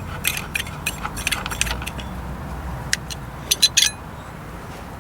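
Small metal parts and a wrench clinking as they are handled: an irregular string of sharp metallic clicks, with a quick run of louder clinks about three and a half seconds in.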